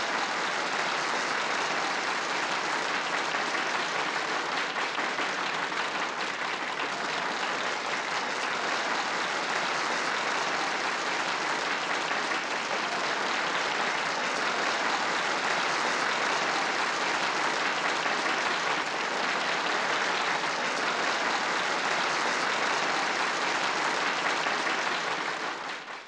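Large audience applauding, a steady sustained clapping that fades out near the end.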